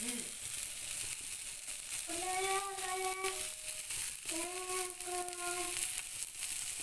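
Semolina-coated fish frying on a flat tawa: a steady sizzle. In the middle a voice holds two long sung notes over it.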